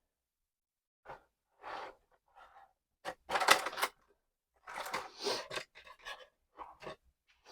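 Rummaging among tools and parts on a workbench while searching for a tool: a scattered run of short clatters, knocks and scrapes, the loudest a rattle lasting under a second about three and a half seconds in.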